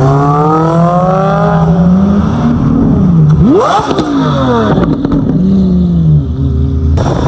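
Lamborghini Aventador SV's naturally aspirated V12, through a Gintani exhaust, pulling hard with its pitch climbing. About three and a half seconds in it revs up sharply, then the pitch falls steadily, with a few sharp cracks from the exhaust.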